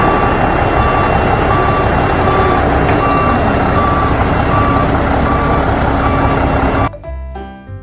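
Truck reversing alarm beeping at a steady pace over a loud running engine. It cuts off suddenly near the end, and music takes over.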